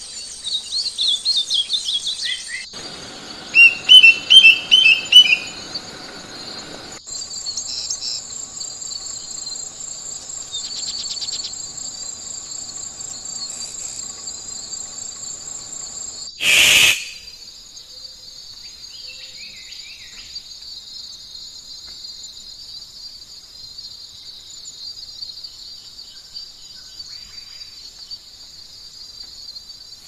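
Several different songbirds singing in turn, cut one after another: quick chirping phrases, then a run of loud repeated notes, then softer trills, with one loud short harsh call about halfway through. A steady high insect buzz runs underneath from about a quarter of the way in.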